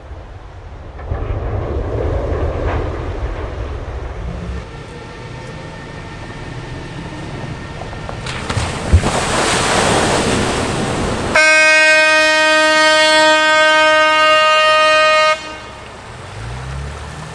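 HafenCity Riverbus amphibious bus driving into a river with a rush of splashing water. About eleven seconds in, a horn sounds one long, steady blast for about four seconds, then cuts off.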